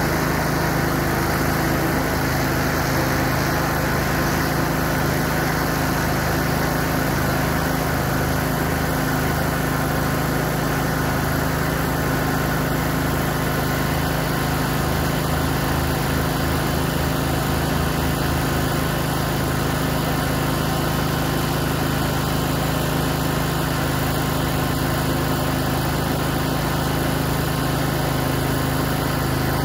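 DJI Agras T30 agricultural spray drone hovering and spraying, its electric rotors giving a loud, steady hum. The low hum beats unevenly for a stretch in the middle.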